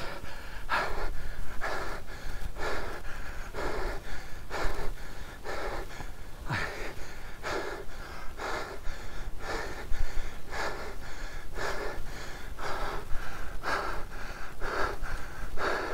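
A cyclist breathing hard with effort while pedalling, about one heavy breath a second.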